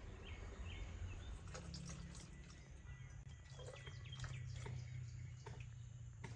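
Liquid being poured from a ceramic pitcher into a clay butter churn, with a few light clinks of the pitcher against the clay and birds chirping faintly.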